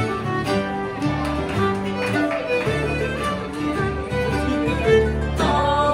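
Background music: an instrumental tune of quick, changing notes.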